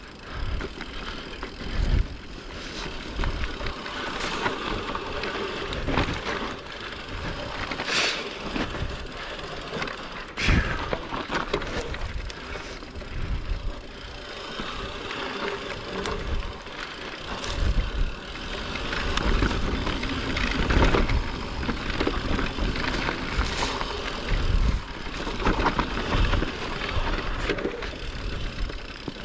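Mountain bike riding down a dirt trail: continuous tyre noise with frequent knocks and rattles as the bike goes over bumps.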